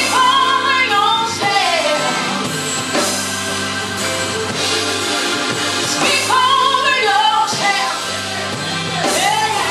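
Music with singing: a voice sings phrases over sustained held chords and a steady beat, with sung lines near the start and again about six seconds in.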